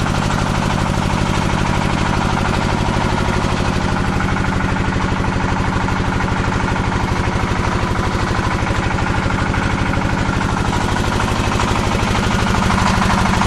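Stationary diesel engine driving a paving-block machine, running steadily with a rapid, even chugging; it gets slightly louder near the end.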